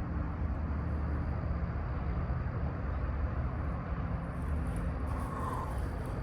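A steady low rumble with a faint hum running through it, like a distant engine or traffic.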